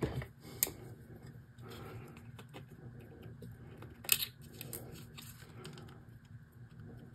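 Small diagonal wire cutters snipping a thin wire lead: one sharp snip about four seconds in. Around it, light clicks and rustles of hands handling a small plastic building shell.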